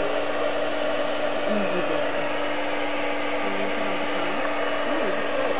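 Electric air pump of an inflatable air mattress running steadily, a continuous blower whir with a constant hum.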